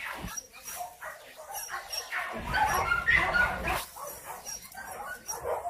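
Shelter dogs barking, several short barks overlapping, loudest around the middle.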